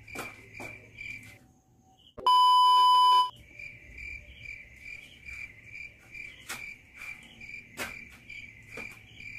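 Crickets chirping in a steady, rapid pulsing trill. About two seconds in, the sound drops out and a loud, flat one-second beep tone cuts in, much louder than the crickets. A few sharp knocks follow later.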